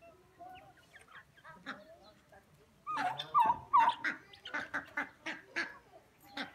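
Flock of chickens and turkeys calling, softly at first, then a run of loud, quick calls from about three seconds in.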